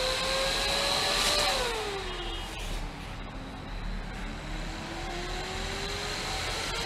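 5-inch 12 V all-metal nine-blade DC exhaust fan running with a rush of air, a steady high whistle and a motor whine. About 1.5 s in, the whine falls in pitch as the fan slows. From about 3.5 s it rises again as the fan spins back up, its speed swinging on an unstable power supply.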